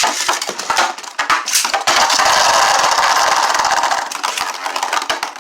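Two Beyblade spinning tops, a 3D-printed Colossus and Astral Spriggan on a rubber tip, launched into a plastic stadium and battling: a sharp launch, a quick rattle of clashes and clicks, then a loud, dense scraping whir of the tops grinding against each other and the stadium floor for a couple of seconds before easing off.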